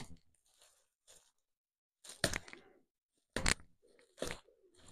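Bubble wrap crackling and rustling in a few short bursts as it is pulled open by hand.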